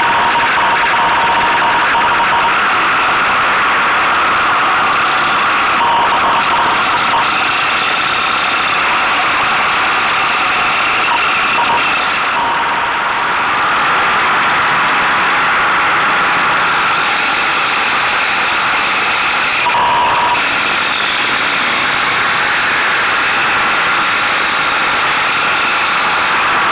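Buell motorcycle engine running at riding speed, heard from a mirror-mounted camera together with rushing wind. The noise stays loud and steady, and the engine note changes a few times through the corners.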